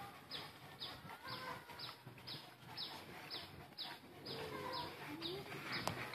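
Birds calling: a high, short falling chirp repeating about twice a second, with faint chicken clucks underneath.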